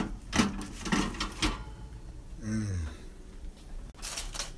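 Clatter of a foil-lined baking tray being taken out of an oven and set down on a gas stove's grates: a few quick knocks and scrapes about a second in, and more near the end. A brief vocal sound comes in between.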